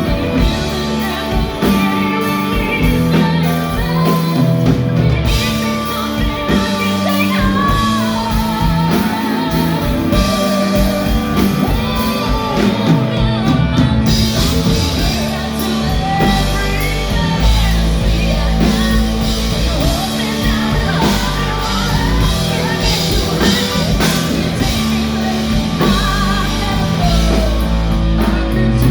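Live rock band playing with a singer's voice over it, in a large hall. About halfway through the band gets fuller, with heavy bass and brighter cymbals.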